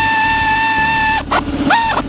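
Pneumatic air ratchet spinning a main bearing cap bolt down, with a steady high whine over a fast rattling clatter. About a second in the whine drops away as the bolt seats, then comes back in two short bursts that glide up in pitch as the trigger is pulsed.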